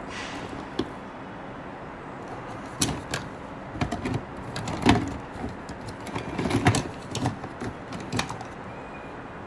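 Toys being handled: a scatter of short clicks and knocks through the middle, over a steady background hiss.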